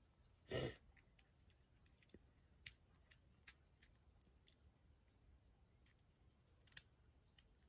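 A brief rustling noise about half a second in, then faint, scattered small clicks every second or so, from the plastic pieces of a Rubik's cube that has come apart being handled.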